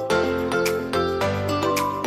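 Background music: a melodic tune with a steady beat.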